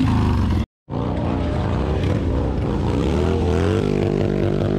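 Cruiser motorcycle engine revving hard through a burnout, its pitch wavering up and down as the rear tyre spins and smokes. The sound cuts out briefly just under a second in.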